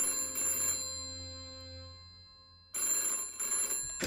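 Antique rotary desk telephone's bell ringing twice, each ring about a second long with the bell's tone dying away after it. Near the end comes a clunk as the receiver is lifted off its cradle.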